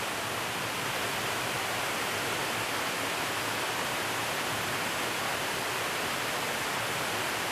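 Water spilling over a low concrete weir into the pool below: a steady, even rush with no breaks.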